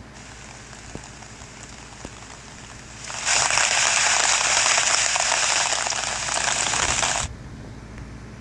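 Heavy rain pouring, in a phone recording that is being played back. The steady hiss is faint at first, turns loud about three seconds in, and cuts off suddenly about seven seconds in.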